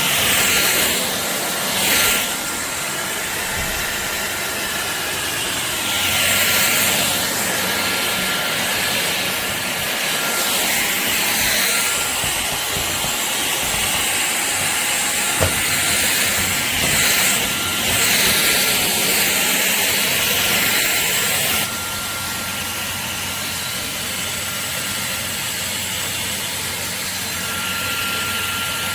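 Shark cordless stick vacuum running with a steady high whine and hiss. The hiss swells several times and drops a step about three-quarters of the way through.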